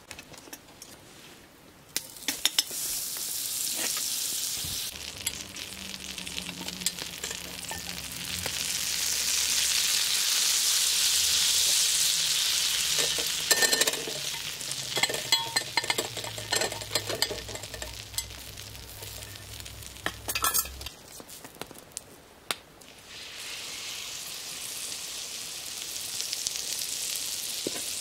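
Fat foaming and sizzling on a hot steel griddle over wood embers, loudest in the middle, with a few clinks of a utensil. After a short lull, a marbled beef steak on the griddle sizzles steadily near the end.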